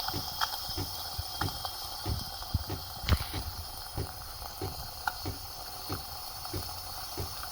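Saeco super-automatic coffee machine's steam wand hissing and sputtering, with popping spurts about two to three times a second.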